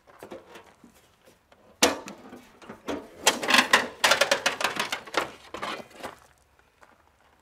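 Kubota BX25 tractor hood being unlatched and tilted open: a sharp clunk about two seconds in, then several seconds of rattling and clattering from the panel and its latches that die away near the end.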